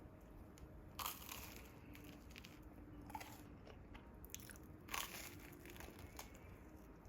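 Two crunchy bites into crisp food, one about a second in and another about four seconds later, with quieter chewing crackles between them.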